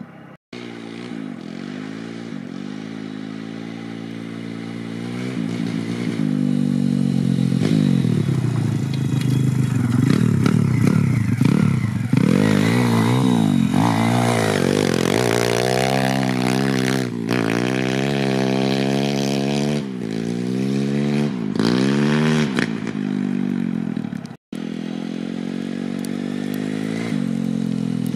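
YCF 150 pit bike's single-cylinder four-stroke engine revved up and down again and again, loudest through the middle stretch, while the rear wheel spins in snow. The sound drops out for a moment twice.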